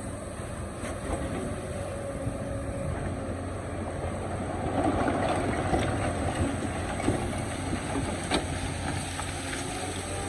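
Excavator's diesel engine running steadily while the bucket digs rock: a louder stretch of scraping and grinding about halfway through, and a few sharp knocks of steel on rock.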